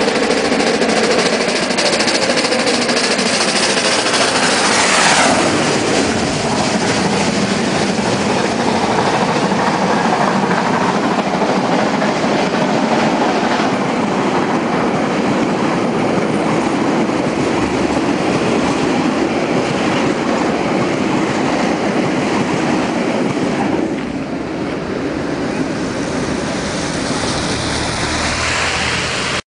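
NZR Ka-class steam locomotive working hard up a grade, passing close by, then its passenger carriages rolling past with the clickety-clack of wheels over the rail joints. The sound drops somewhat in level near the end as the train moves away.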